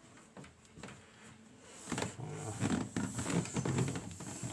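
Irregular metal clicks and rattles from a picked euro cylinder lock and lockpicking tools being handled in a vise, growing busier about two seconds in.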